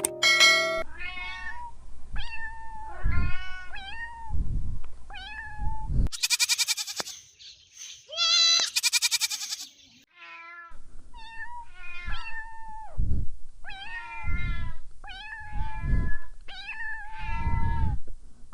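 Cat meowing over and over, many separate meows in a row. Around the middle come two louder, harsher, higher-pitched cries.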